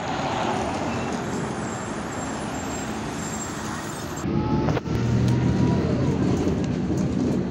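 MAN Lion's Classic city bus engine running, first heard from outside next to the bus with traffic noise, then, after an abrupt change about four seconds in, from inside the cabin as a steadier, deeper drone.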